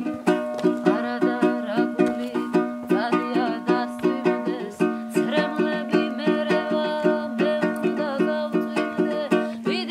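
A Georgian panduri strummed in a steady, even rhythm, with a woman's voice singing a folk melody over it.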